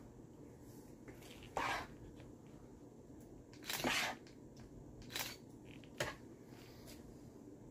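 A spoon scooping and scraping a moist rice-and-vegetable filling out of a bowl: four short scrapes and taps, the loudest about four seconds in, the last a light click.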